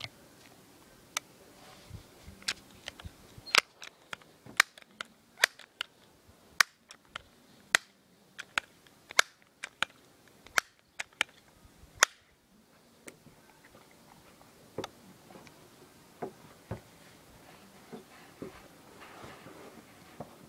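Sharp clicks and pops from a Crosman 1377 multi-pump pneumatic air pistol being worked and shot: a few at first, then a quick run of about one or two a second for several seconds, then a few more spaced out.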